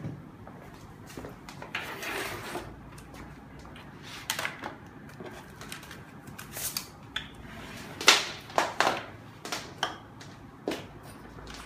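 Scattered clicks, knocks and brief rustling as cables, papers and small plastic equipment are handled and set down on a desk, with the loudest knocks about eight seconds in.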